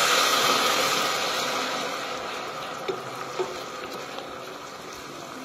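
White wine hitting a hot pot of frying onion and garlic, deglazing it: a loud sizzling hiss that dies down over the first couple of seconds into a softer steady sizzle as the alcohol cooks off. A couple of light knocks about three seconds in.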